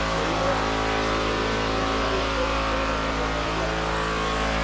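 A motor running steadily, an even hum that holds the same pitch throughout.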